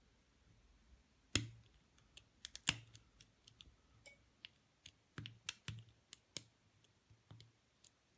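A lock pick working the pins inside the core of an Abus Brady lockout padlock under tension: irregular light clicks and taps, two louder clicks in the first three seconds.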